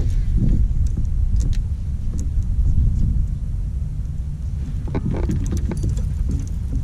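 Low, buffeting rumble of wind on the kayak-mounted camera's microphone, with a few light clicks about five seconds in as the baitcasting rod and reel are worked.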